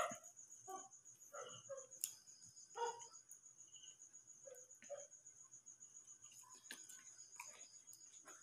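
Crickets chirping in a steady high trill. Faint, short eating and handling noises come and go over it, the loudest about three seconds in.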